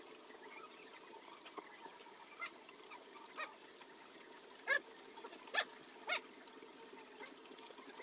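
A few short animal calls in the background, the loudest three coming in quick succession between about four and a half and six seconds in, over a faint steady background hum.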